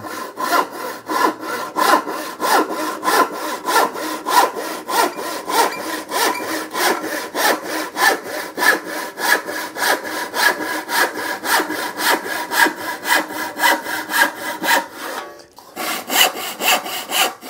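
A 22-inch handsaw ripping a board along the grain, in a steady rhythm of back-and-forth strokes. The strokes break off briefly near the end, then start again.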